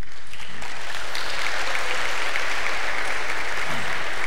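Church congregation applauding, many hands clapping in a dense, steady patter that swells over the first second or so.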